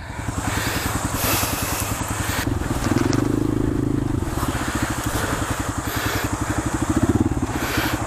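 A 150 cc trail motorcycle's engine running as the bike rides over rough riverside ground, with the revs rising briefly about three seconds in and again near seven seconds.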